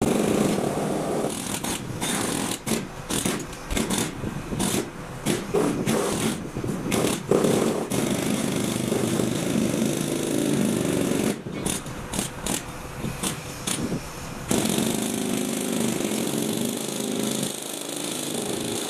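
Hydraulic pile-driving rig on an excavator running steadily, with bursts of rapid, irregular clattering knocks over the first half and again for a few seconds later on.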